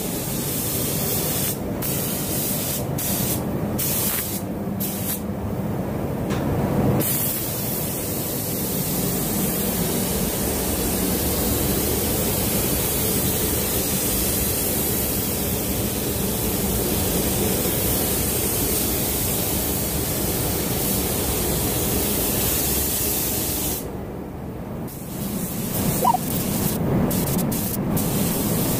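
Paint spray gun hissing steadily as it lays matte clear coat over a car body. The hiss breaks off briefly several times, with a longer break a little before the end, as the trigger is let off between passes.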